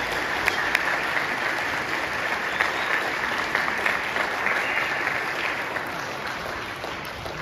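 Audience applauding, a dense clapping that slowly dies away near the end.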